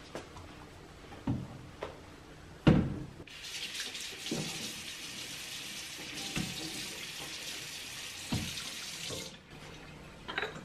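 Kitchen tap running into a stainless-steel sink as a pomelo is rinsed under it, starting about three seconds in and shut off about six seconds later. A few knocks from the fruit and sink being handled come before and during the water, the loudest just before the tap comes on.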